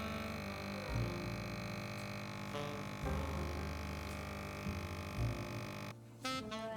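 Background music: sustained synthesizer chords over a low bass line, briefly dropping out near the end before new notes come in.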